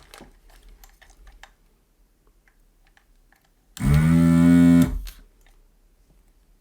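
A few light clicks, then a desoldering station's vacuum pump buzzing loudly and steadily for about a second as the desoldering gun's suction is tried out.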